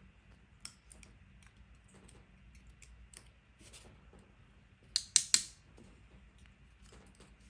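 Small metal parts of a pin-tumbler lock and tools being handled during disassembly: scattered faint clicks and taps, with a quick run of three sharper clicks about five seconds in.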